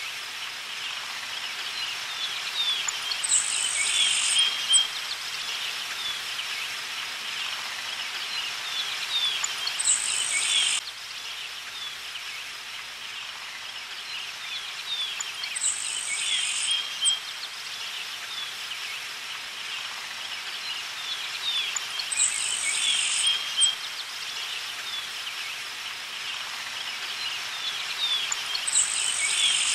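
Birds chirping over a steady outdoor ambience, with a high insect trill lasting about a second that comes back roughly every six seconds.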